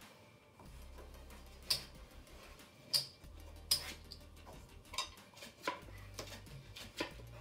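Casino chips clicking as they are paid, stacked and set down, with playing cards being swept up off a felt blackjack table: about six sharp clicks spread over several seconds.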